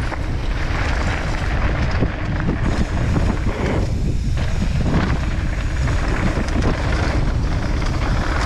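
Wind buffeting a moving action camera's microphone on a mountain bike descending a trail, mixed with the steady rumble and rattle of tyres over loose gravel.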